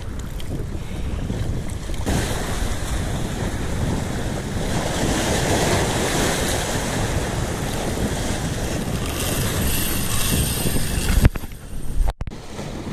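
Wind buffeting the microphone over surf washing and breaking against jetty rocks, swelling louder in the middle. A sharp click and a brief dropout near the end.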